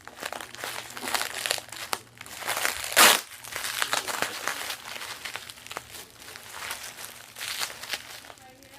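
Package wrapping being torn and crinkled open, with irregular rustling throughout and one loud, sharp rip about three seconds in.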